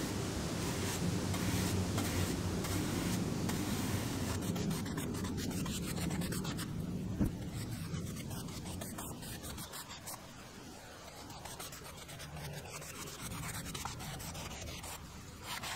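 Paintbrush bristles stroking a wood finish onto a wooden board, a steady soft rubbing and scratching, with one sharp tap about halfway through.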